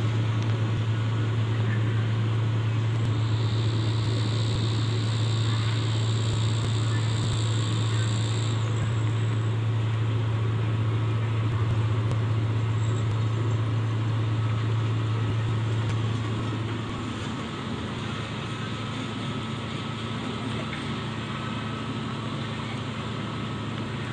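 A heavy machine's diesel engine running with a steady low hum while the truck crane lowers a tracked drilling rig into the pit. A faint high whine sounds for a few seconds near the start. The engine drops to a quieter level about sixteen seconds in.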